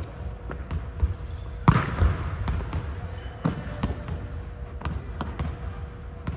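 Volleyballs smacking and bouncing on a hardwood gym floor, the hits echoing through a large hall. One loud smack comes a little under two seconds in, followed by lighter thuds scattered through the rest.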